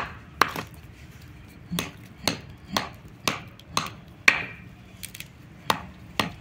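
Tamarind pods knocked one after another against a wooden block: sharp, dry knocks about twice a second, with a short pause about a second in, as the fruit is pounded to free the seeds and fibre.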